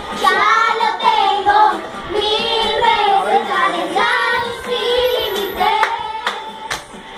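Young girls singing loudly and excitedly while they dance, with a few sharp claps or slaps about six seconds in.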